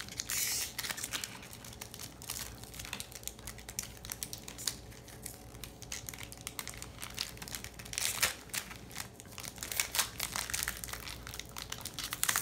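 Foil wrapper of a Pokémon card booster pack crinkling in irregular bursts as the pack is handled and opened, loudest about eight and ten seconds in.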